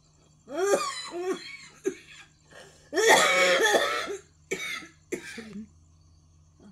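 A woman coughing in a bout of several coughs in three clusters, the longest and loudest about three seconds in. It is a lingering cough that began with a cold two weeks earlier and comes with chest pain.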